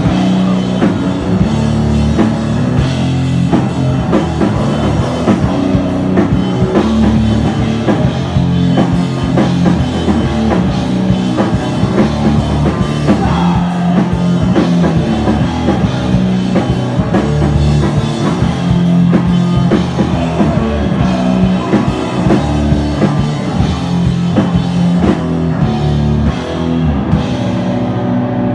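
Live heavy rock band playing loud: distorted guitar riffs over a pounding drum kit, with the cymbals and high end thinning out near the end.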